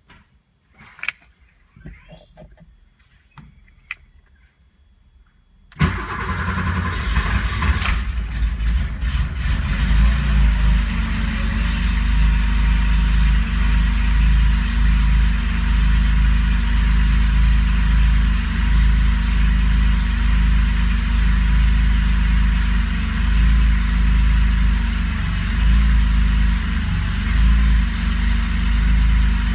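Porsche 911SC's air-cooled flat-six starting about six seconds in after a few faint clicks, catching at once, then idling steadily with a deep, even rumble.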